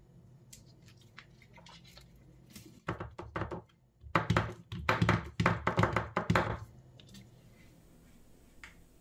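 Paracord lanyard being pulled through its sliding knots and the Kydex sheath's eyelets to adjust its length, giving quick rubbing, knocking strokes: a short burst about three seconds in, then a run of about eight more.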